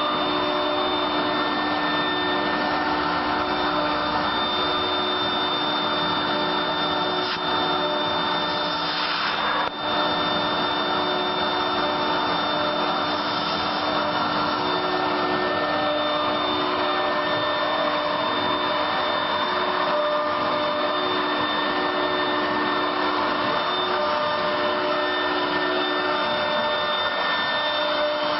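LD-1325 wood CNC router running and machining wood on its rotary axis: a steady whine of several fixed tones over a constant noisy hiss, with a brief dip about ten seconds in.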